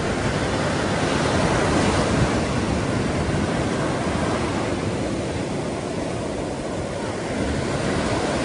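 Black Sea surf breaking and washing up on a sandy shore, a steady rushing, with wind rumbling on the microphone.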